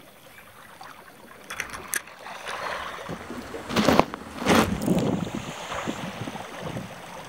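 Water running and lapping where a small stream flows into a lake over a pebbly shore, with two louder bursts of rustling noise about four seconds in.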